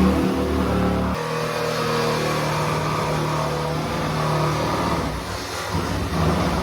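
Electric power saw running, cutting through a wooden kitchen cupboard unit; its motor note drops a little about a second in.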